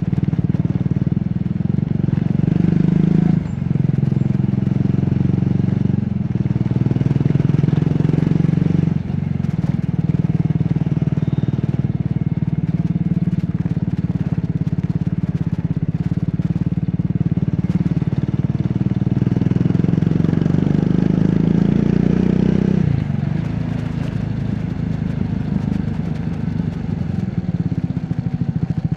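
Triumph Scrambler 400X's single-cylinder engine and exhaust under way, picking up speed with three brief dips in revs as it shifts up through the gears in the first nine seconds or so. It then runs steadily, and the revs fall off near the end as the throttle closes and it slows.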